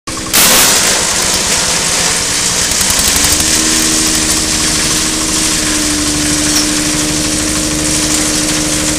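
Straw and coconut-frond chopper machine running, driven by its small engine: a steady loud mechanical drone with a fast, even engine beat. A loud, noisy burst comes just after the start, and a steady tone joins about three seconds in.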